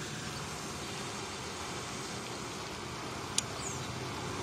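Steady outdoor background hiss with no distinct source standing out, and one short sharp click about three and a half seconds in.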